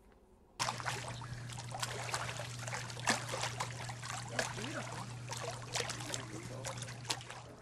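Swimming-pool water lapping and splashing in small irregular trickles, stirred by a swimmer floating on her back, over a steady low hum. It starts suddenly about half a second in.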